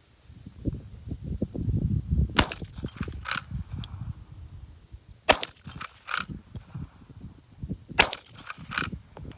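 Three shots from an Uberti 1873 Winchester lever-action short rifle firing 158-grain .38 Special rounds, spaced about three seconds apart. Each shot is followed under a second later by a quieter sharp clack, the lever being cycled to chamber the next round.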